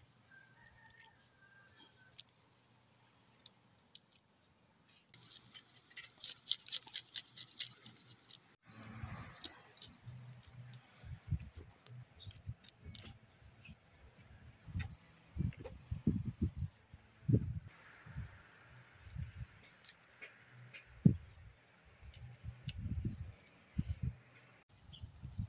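A bird chirping over and over, a short high falling note about twice a second, over irregular low thumps of handling. About five seconds in comes a few seconds of crackly rustling.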